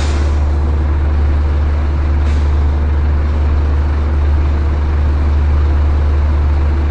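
Scania truck's diesel engine idling steadily. A short hiss of released air right at the start, and a fainter one about two seconds in.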